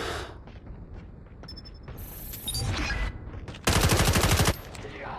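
Video-game gunfire from a first-person shooter: scattered shots and effects, then a loud rapid burst of automatic fire a little under four seconds in, lasting under a second.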